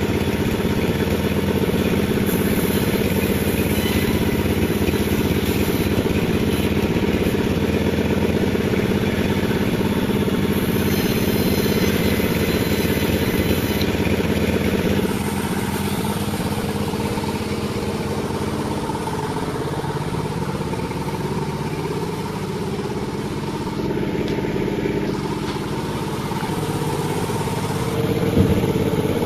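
Panda36 sawmill running steadily with a mechanical, engine-like drone. About halfway through it gets slightly quieter and duller, as if the mill goes from a heavier load to a lighter one.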